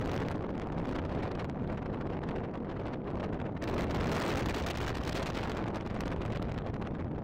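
Wind buffeting the microphone on the open deck of a ferry under way: a steady rushing noise with a low rumble, growing stronger about three and a half seconds in.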